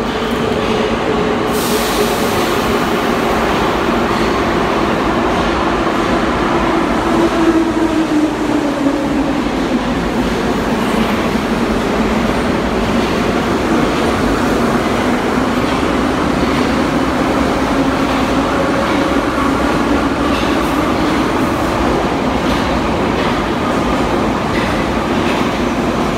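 Ema-502 metro train pulling out of the station and running past at close range: traction motors whining and steel wheels running on the rails, loud and steady, with motor tones that shift in pitch as it gathers speed.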